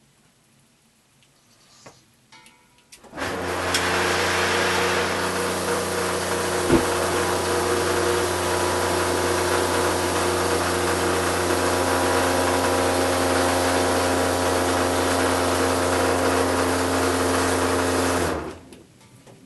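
Outdoor shower spraying with its electric water pump running, a steady hum through the metal shower walls under the hiss of the water. It starts suddenly about three seconds in, has one sharp click partway through, and cuts off suddenly near the end.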